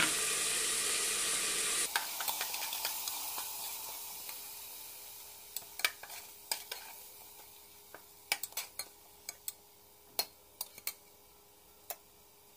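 Ground spices frying in hot oil with onions in an aluminium pressure cooker, the sizzle dropping suddenly about two seconds in and then fading away. A spatula stirs the masala through the second half, giving scattered sharp knocks and scrapes against the cooker's metal side.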